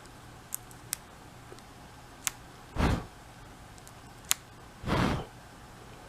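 A metal pin picking lint out of a phone's charging port, making a few sharp, faint ticks. Two short puffs of breath come between them.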